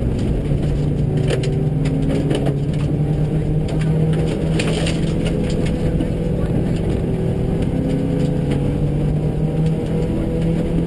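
In-car sound of a Subaru rally car at speed on a gravel stage, two runs heard together, one in each stereo channel: the flat-four engine running hard with its pitch rising and falling, and gravel clicking and knocking against the car's underside.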